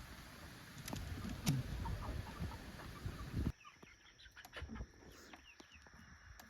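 Chickens clucking quietly, with scattered light clicks and knocks. The background changes suddenly about halfway through.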